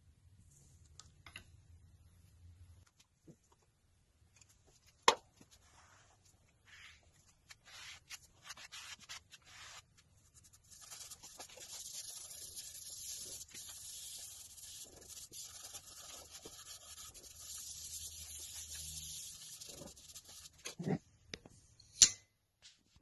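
A nitrile-gloved hand rubbing finish into a wooden board, a faint, steady hissing rub through the middle and latter part. Lighter scattered rustles come before it, and there are two sharp clicks, one about five seconds in and one near the end.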